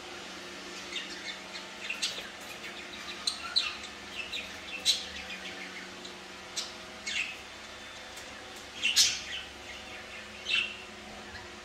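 Birds chirping: scattered short, high chirps, the loudest cluster about nine seconds in, over a faint steady low hum.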